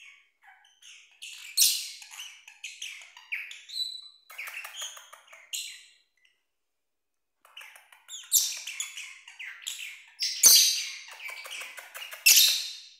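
Small parrots calling, a red-rumped parrot and a lovebird: short high chirps and chattering calls made of fast pulses, in bouts with a pause about six seconds in and the loudest calls in the second half.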